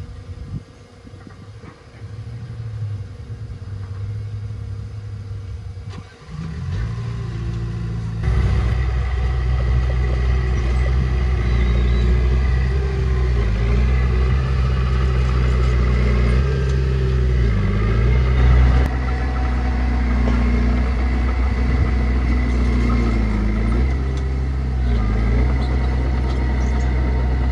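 Small crawler bulldozer's diesel engine working under load. It is quieter at first and grows loud about eight seconds in. Its pitch sags briefly twice as the blade pushes soil.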